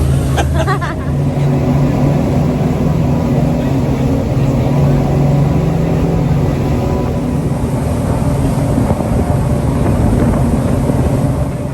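Tour boat's engines running hard under way: a loud, steady drone with rushing wind and water noise. It drops off sharply near the end as the boat slows.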